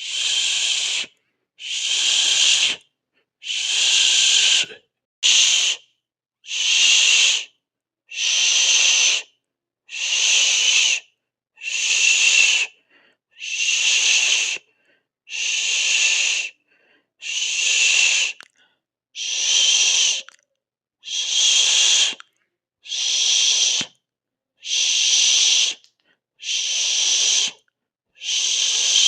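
Repeated hissing in evenly paced bursts, about one every two seconds, each lasting a little over a second with silence between, like a drawn-out 'shhh' or 'sss'.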